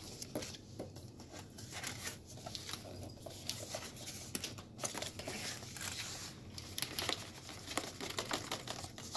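Cardboard shipping box being opened by hand: packing tape and cardboard tearing, with crinkling and irregular small clicks of handled packaging.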